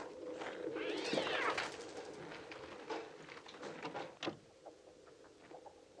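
Electronic bird sounds, made on a Mixtur-Trautonium: a massed, steady low murmur of birds with many scattered sharp clicks. About a second in comes one drawn-out screeching cry that rises and then falls in pitch. The sound thins out after about four seconds.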